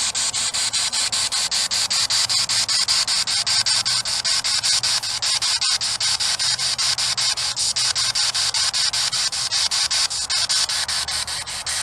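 Spirit box sweeping through radio stations: loud hissing static chopped into rapid, even pulses several times a second, with a low hum underneath.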